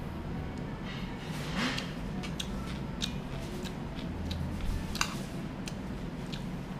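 Metal chopsticks clicking against each other and tapping the plate as food is picked up: irregular light clicks, a dozen or so, over a steady low hum.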